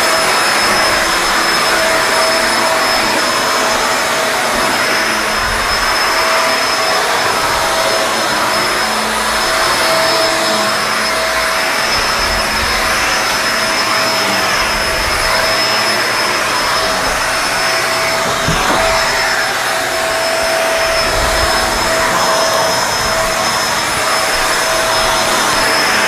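Kenmore Lift-Up Anti-Tangle upright vacuum running at full suction while pushed over carpet: a steady, even rush of airflow with a constant motor whine.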